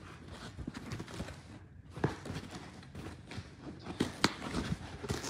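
Irregular rustling, clicks and taps of a clock's packaging being handled and opened during unboxing, with a sharper knock about two seconds in and a louder click a little after four seconds.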